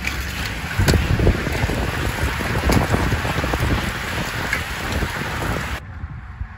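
A pack of road racing bicycles sweeping past close by: a rush of tyre hiss and air, with gusts of wind buffeting the microphone. It cuts off suddenly near the end.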